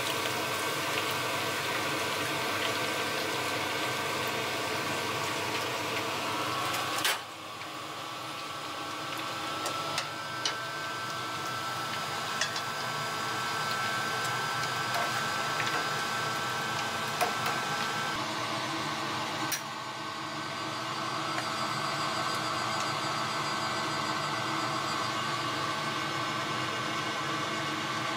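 Hot oil sizzling and bubbling in a wok as a vegetable kakiage fritter deep-fries. The sizzle cuts off abruptly about seven seconds in and comes back quieter, with a few light clicks.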